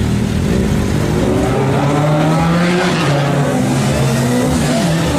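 Four-cylinder sport motorcycle engine revving, its pitch climbing and falling, with a loud rush about three seconds in.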